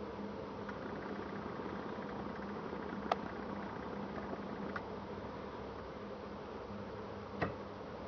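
Airbus A340-600's four Rolls-Royce Trent 500 turbofans at taxi power: a steady drone with a low hum. Two short clicks, one about three seconds in and one near the end.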